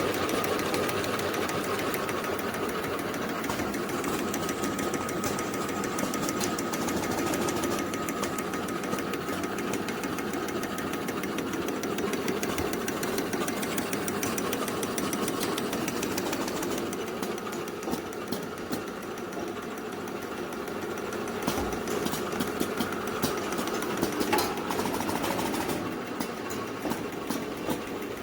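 Horizontal straw-packaging machine running, a fast, even mechanical clatter with a steady whine over it. A few sharper clicks come in near the end.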